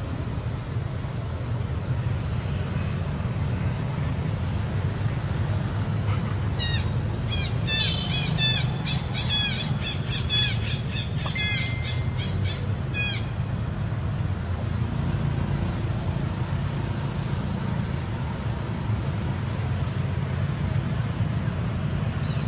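A quick series of short, high-pitched chirping calls from an animal, starting about six seconds in and stopping about six seconds later, over a steady low rumble like distant traffic.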